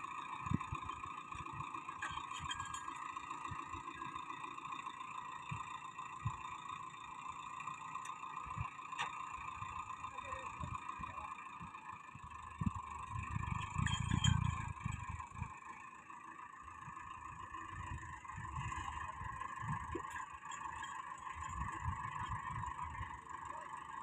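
Tractor engine running steadily while it powers the hydraulic crane boom holding the pole, with a steady whine along with it. Irregular low thumps and rumbles come and go, loudest about fourteen seconds in.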